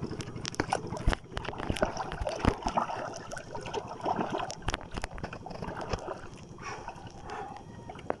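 Water sloshing and gurgling against a small boat's hull, with irregular sharp clicks and knocks throughout.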